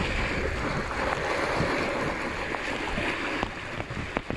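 Water rushing along a water slide chute as a rider slides down it, a steady wash of noise, with a few sharp knocks near the end.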